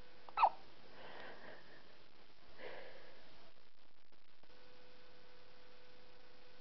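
A single short, high-pitched squeaky hiccup about half a second in, followed by a couple of soft breaths or sniffs.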